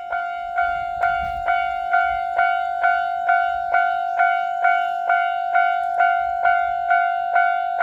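Japanese railway level-crossing warning bell ringing steadily, about two strikes a second on one clear tone: the crossing's alarm warning of an approaching train.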